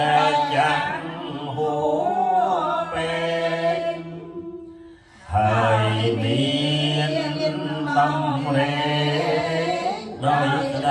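A group of Khmer Buddhist lay devotees chanting together in unison from chant books, with one voice led through a microphone. The chant breaks off briefly for a breath about four and a half seconds in, then starts again louder.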